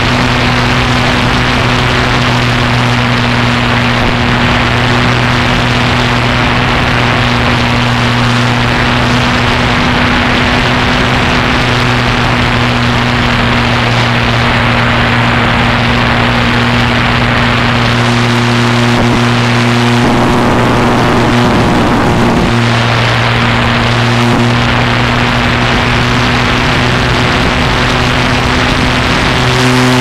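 Engine and propeller of a small propeller aircraft running at a steady, unchanging pitch, heard from a camera on board, with heavy rushing airflow noise. About twenty seconds in, the tone wavers briefly in pitch.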